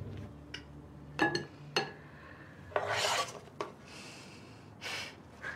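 Metal utensils clinking and scraping against a frying pan as food is lifted out of it: two sharp clinks, then a longer scrape and a shorter one near the end.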